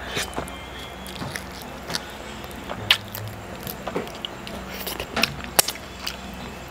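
Close-miked mouth sounds of a person biting and chewing grilled marinated mutton: irregular wet clicks and smacks, a few sharper than the rest, over a steady low hum.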